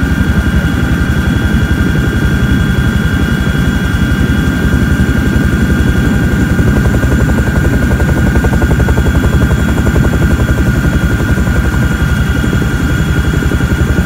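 CH-47 Chinook tandem-rotor helicopter in flight: loud, steady rotor beat of rapid, even pulses, with a high steady turbine and gearbox whine over it.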